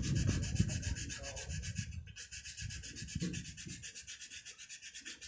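Hand sanding of the diesel feed pump's banjo-fitting sealing face on sandpaper, so it sits flat for new washers: repeated rough rubbing strokes, stronger in the first second or so, then fainter.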